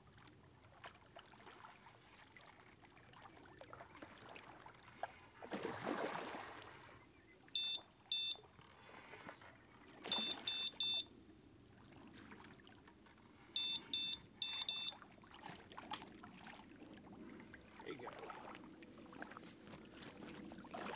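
Electronic carp bite alarm on the rod pod beeping in short runs, two beeps, then three, then four, as the hooked carp, tangled in the other line, pulls line through it. A splash of water about six seconds in, with faint water noise between.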